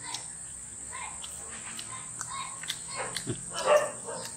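Crickets chirping in a steady high trill, with scattered small clicks and a brief louder noise near the end.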